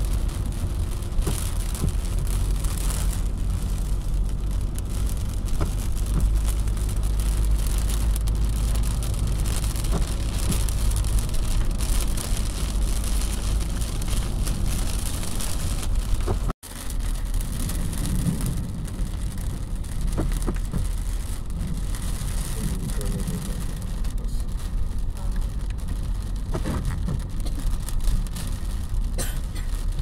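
Driving in heavy rain, heard from inside a car: a steady low rumble of engine and road noise under the hiss of wet tyres and rain on the car. The sound drops out for an instant about halfway through.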